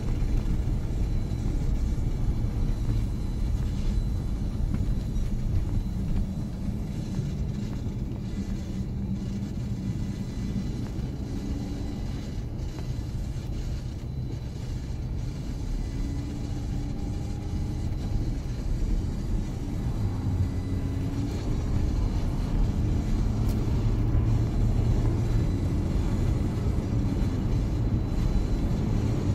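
Steady low rumble of a car driving on a snow-covered road, engine and tyre noise heard from inside the cabin.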